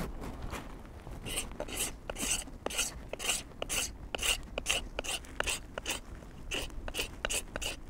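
Mora knife blade scraping factory lacquer off a hatchet's wooden handle: quick repeated scraping strokes, about two to three a second, starting about a second in.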